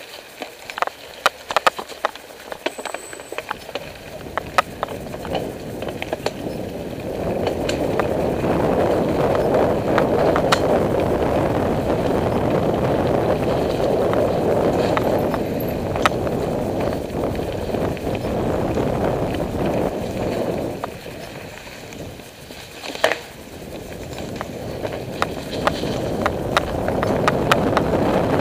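Mountain bike ridden along a leaf-covered dirt singletrack: a steady rushing noise of tyres rolling over dry leaves and wind on the microphone, with frequent knocks and rattles from the bike over bumps. The rushing grows louder after several seconds as speed picks up, eases for a few seconds about three quarters through, then returns.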